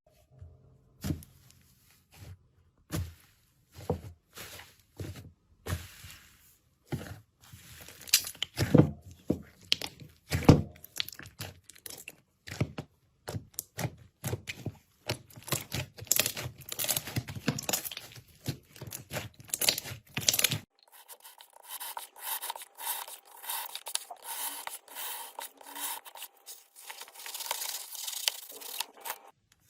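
Slime being squeezed, stretched and poked by hand, with irregular sticky crackling, pops and clicks. About two-thirds of the way through it changes to a different, thinner-sounding recording of the same kind of handling.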